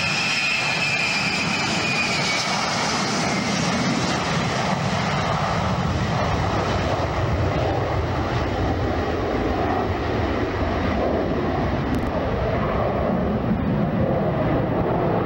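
Jet engines of a Tupolev Tu-154B-2 airliner, its three rear-mounted turbofans, running as it rolls past on the ground and moves away. A high whine falls in pitch over the first few seconds and fades into a steady, even roar with a deeper rumble.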